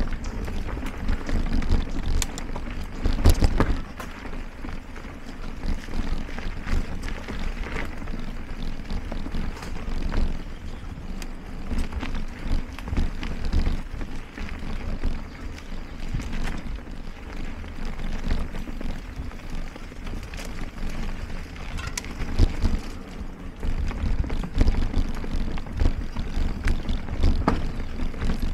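Mountain bike riding along a dirt forest singletrack: a steady rumble of tyres on dirt with frequent knocks and rattles of the bike over bumps, the heaviest knock about three seconds in.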